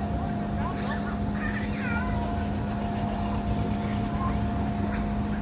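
A steady engine drone with a constant hum running under it, and a few short high chirps over it about a second and a half in.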